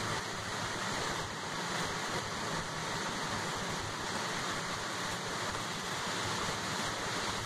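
Steady hiss of heavy rain and tyres on a wet road, heard from inside a moving transit bus.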